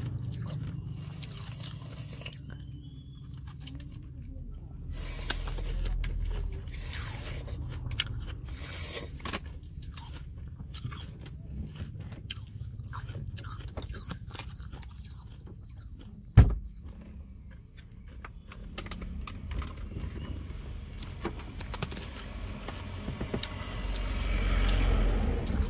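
Shaved ice being bitten and chewed close to the microphone: repeated crisp crunches with some scraping. A single sharp thump about two-thirds of the way through is the loudest sound.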